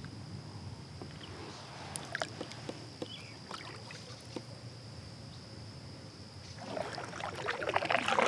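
Faint scattered clicks and light water sounds close beside a kayak, then a kayak paddle dipping and splashing in the water for the last two seconds or so.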